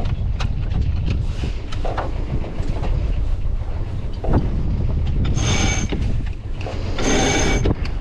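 Wind buffeting the microphone over the rush of a sailboat through the waves, with scattered clicks and creaks from lines and rigging. About five and seven seconds in come two short bursts of a sheet winch being cranked, its pawls ratcheting as the genoa sheet is hauled in.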